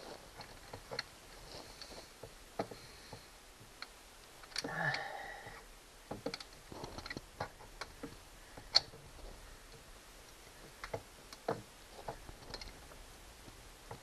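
Scattered light clicks and knocks of metal steering-linkage parts being handled and fitted against an outboard motor's steering bracket, with one sharper click near the nine-second mark and a longer noisy sound about five seconds in.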